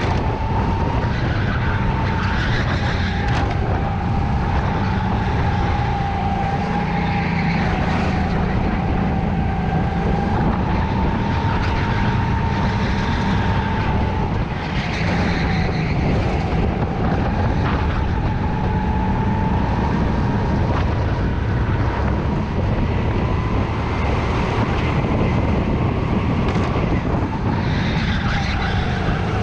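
Onboard sound of a Sodi kart's engine running through a lap. Its steady note wavers gently up and down with the throttle through the corners, over a constant rush of noise.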